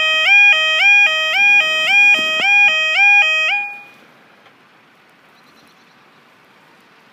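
Railway level crossing alarm sounding its two-tone warning, a low and a high tone alternating about one and a half times a second. It stops abruptly about three and a half seconds in, leaving only a faint outdoor background.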